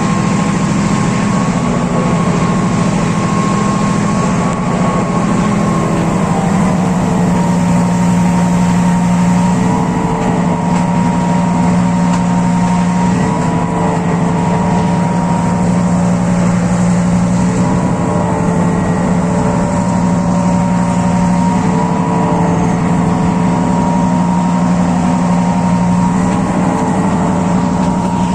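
Class M6 diesel-electric locomotive's EMD engine running at high throttle: a steady low drone with higher whining tones above it that shift in pitch about six seconds in.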